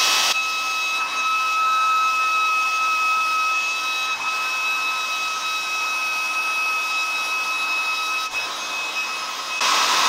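Philips hair dryer running steadily: a rush of blown air with a high, even whine, as it blows hot air over gummy bears.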